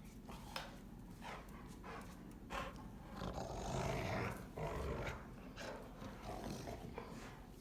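Rottweilers growling during rough play, a string of short growls with a longer, louder one about halfway through.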